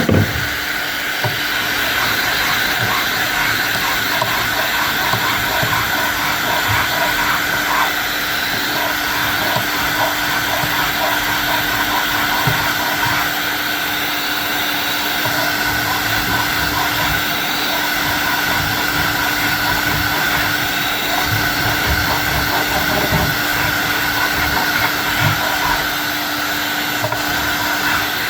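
Electric workshop machine running steadily, a constant motor whir with a steady hum that drops out just before the end.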